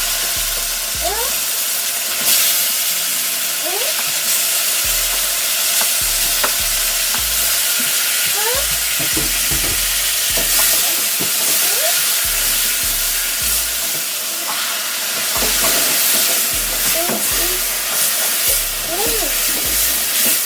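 Tomatoes frying with onions and garlic in hot oil in a pan: a steady sizzle, with the pan stirred now and then.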